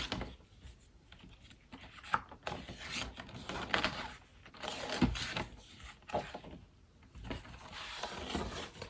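Handling and flipping the pages of a desk calendar: paper rustling with scattered small clicks and taps.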